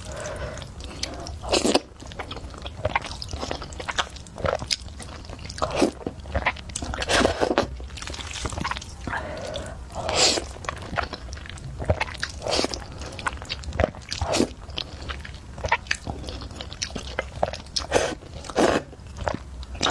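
Close-miked eating sounds of spicy instant noodles: irregular wet bites, smacks and chewing, with a few longer slurps.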